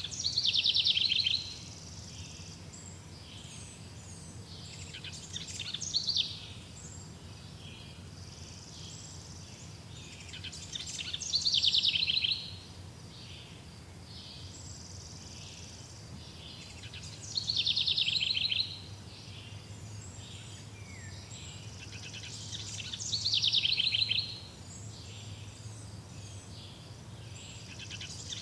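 A songbird singing the same short, high trilled song over and over, one phrase about every six seconds, over a steady low hum.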